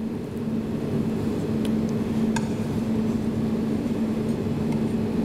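Steady low hum, with a few faint clicks and crackles as a knife cuts through crisp caramelised puff pastry.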